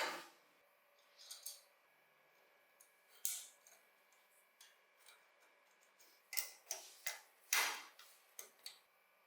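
Scattered light clicks and taps from small parts of a diecast model car being handled: a sharp click at the start, a few more through the middle, and a quick cluster of taps towards the end.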